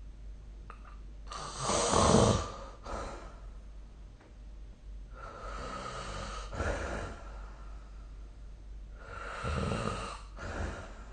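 A sleeping person snoring: three snoring breaths about four seconds apart, each followed by a shorter breath, with the first snore the loudest.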